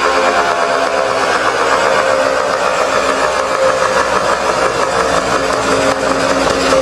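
Federal Signal Model 2 electromechanical outdoor warning siren sounding a steady, loud tone with many overtones, echoing off the surroundings. Its pitch eases down slightly over the first second or two, then holds.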